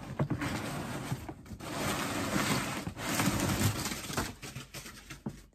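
Packing stuffing rustling and crackling as it is pulled out of an opened shipping box, in several long stretches that die down near the end.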